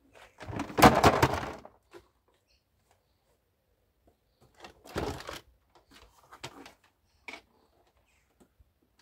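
Scrap plastic appliance dropped onto a pile of scrap, a clattering crash about a second in; a second, shorter clatter about five seconds in and a few knocks after as more scrap is shifted in the car boot.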